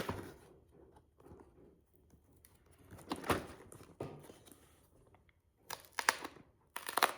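Cardboard Lego set box being opened: short bursts of rustling and tearing cardboard, busiest near the end.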